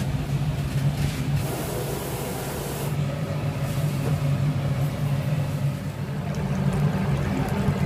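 Steady low hum of machinery at a deep-fry stall, with a spell of hiss about one and a half to three seconds in.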